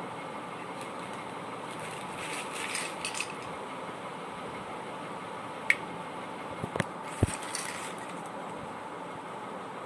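A steady background hum with a brief rustle, then a few sharp clicks and knocks of objects being handled.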